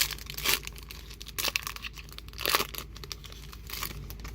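Pokémon booster pack's foil wrapper being torn open and crinkled: irregular crackling with a few sharper rips.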